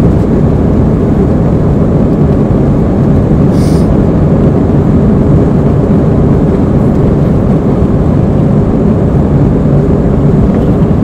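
Airbus A320 engines and the rumble of the jet rolling on the runway, heard inside the passenger cabin during the takeoff roll: a loud, steady, low noise.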